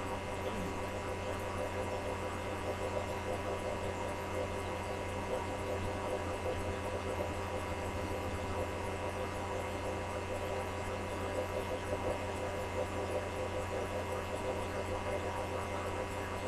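Steady electrical mains hum with a faint hiss underneath, unchanging throughout; no other sound stands out.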